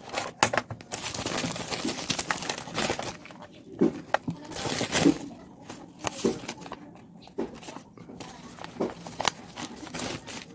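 Plastic packaging crinkling and rustling as hands unwrap and handle small tool-kit items, with paper sheets rustling and irregular small clicks and knocks.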